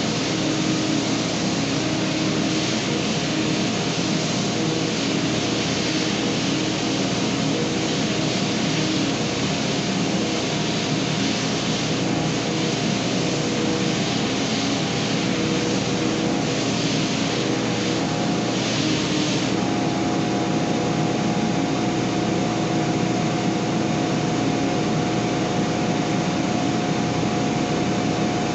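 Stationary long-belt sander running steadily with a 40-grit belt. A coarse sanding hiss comes and goes through the middle stretch as a wooden stair tread is worked against the belt, then stops about two-thirds of the way through while the motor keeps running.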